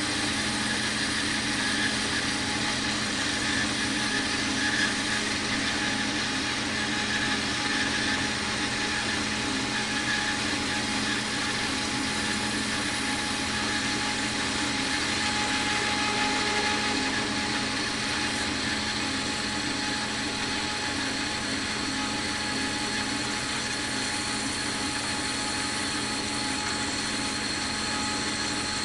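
Shop-built metal-cutting bandsaw running steadily, its motor humming and blade cutting through a piece of metal bar stock clamped in the vise.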